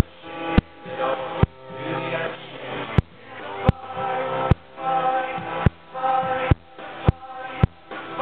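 Live band playing, with singing over acoustic guitar. The music is broken by sharp clicks roughly once a second, each followed by a brief dip in the sound.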